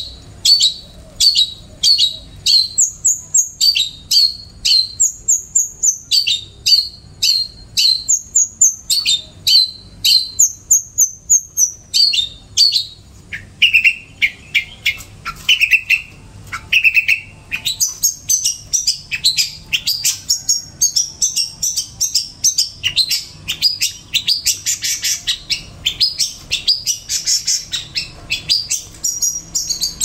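A caged songbird singing loudly without a break: sharp high chirps about two a second at first, a few lower whistled notes near the middle, then fast, dense chattering through the second half.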